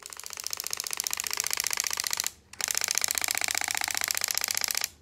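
Canon G7X compact camera's lens motor grinding with a rapid, drilling-like clicking as it tries to move a jammed lens. The lens broke and stuck when the camera fell. It comes in two bursts with a brief break just after two seconds.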